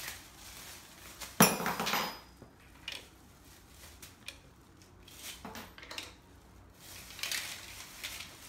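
Hard objects knocking and clinking together inside a plastic shopping bag as it is handled, with plastic rustling. One loud clatter comes about a second and a half in, followed by a few scattered knocks.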